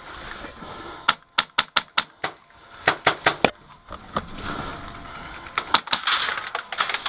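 Airsoft rifle firing single shots in quick strings, each a sharp mechanical clack: a run of about a dozen over a couple of seconds, a pause, then another string near the end.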